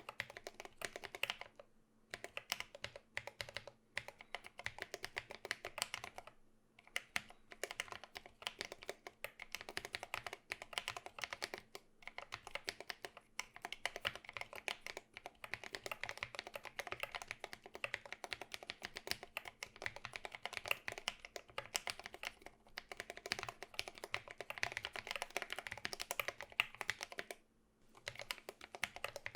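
Fast, continuous typing on a mechanical keyboard with lubed Drop Holy Panda tactile switches, PBT MT3-profile keycaps, in a foam-lined aluminium 60% case with a tray-mounted plate. The key presses click and clack irregularly, with a few brief pauses, about two seconds in, near six and a half seconds and near the end.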